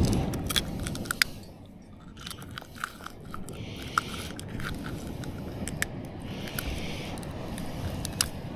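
Scattered sharp clicks, crunches and scrapes from a freshly landed tailor being handled and unhooked, the hook set in its face, with a few short hisses.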